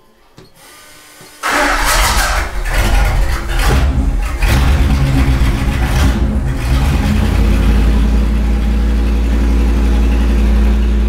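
1954 Dodge 241 Hemi V8 on an engine dyno firing up about a second and a half in. It runs unevenly with sharp irregular bursts and revs for a few seconds, then settles into a steady idle.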